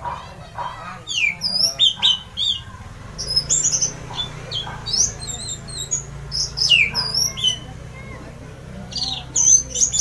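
Orange-headed thrush singing loudly: bursts of quick, sweeping whistles and chirps in varied phrases, with short pauses between them.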